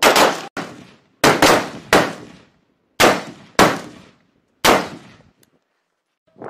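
M4-pattern carbine fired in single shots, about seven in all and mostly in pairs roughly half a second apart, each crack trailing off in a short ringing echo.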